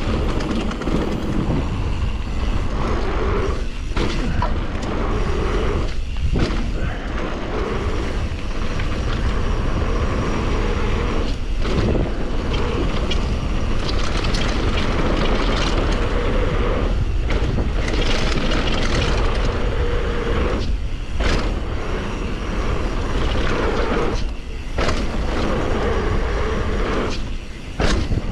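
Mountain bike descending a dirt and gravel trail: wind rumbling on the camera microphone over the rolling noise of the tyres, with scattered rattles and clicks from the bike. The noise is loud and steady, easing briefly every few seconds.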